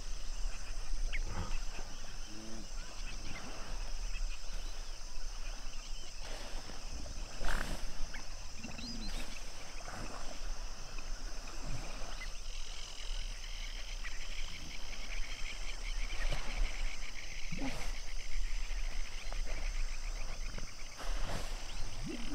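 Common hippos calling now and then with short low grunts and honks, one louder call about seven seconds in, over a steady evening chorus of frogs and insects that thickens into fast chattering about halfway through.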